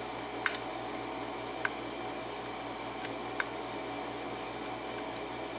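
Lock pick ticking against the pins inside a six-pin Schlage KIK lock cylinder during single-pin picking: a few short, sharp clicks spaced irregularly over a few seconds, over a steady low hum and hiss.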